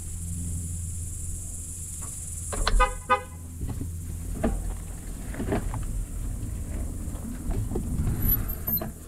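A vehicle horn toots twice in quick short bursts about three seconds in, over a steady low rumble from a bicycle rolling across asphalt.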